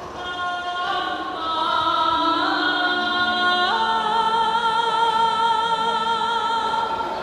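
Several voices singing long, held notes with vibrato together, the pitch stepping up a couple of times in the first half and getting louder early on.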